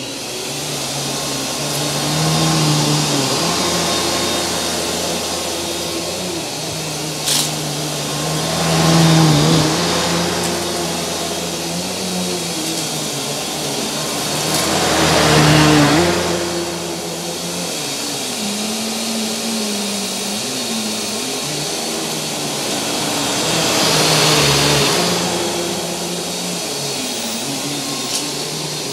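Kenmore upright vacuum cleaner running on shag carpet, its motor and brushroll hum wavering in pitch and growing louder three times as it is pushed in long strokes. A single short click about seven seconds in.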